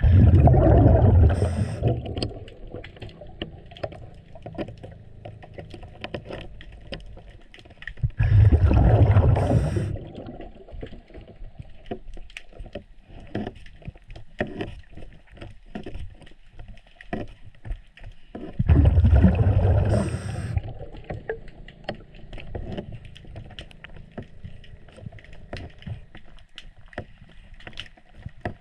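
Underwater, a scuba diver's regulator breathing out three loud bursts of bubbles, about ten seconds apart. Between the breaths there are many small sharp clicks and ticks of wrench work on the sterndrive's anode.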